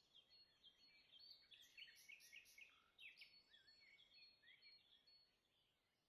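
Faint birdsong: several small birds chirping and twittering in quick short calls, fading away near the end.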